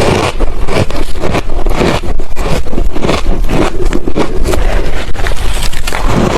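Ice being chewed close to the microphone: loud, continuous, irregular crunching of many quick bites and grinds.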